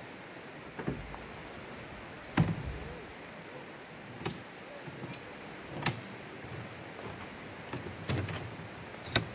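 A handful of separate sharp knocks and clicks, about six, spaced irregularly over a steady hiss; the loudest comes about two and a half seconds in.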